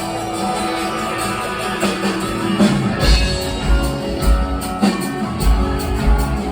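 Live rock band playing, led by electric guitar; about three seconds in, the drums and bass come in with a heavy beat.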